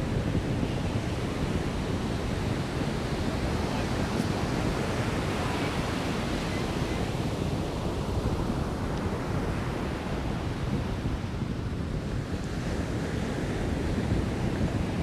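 Surf washing onto a beach, a steady rush that swells and eases slowly, with wind rumbling on the microphone.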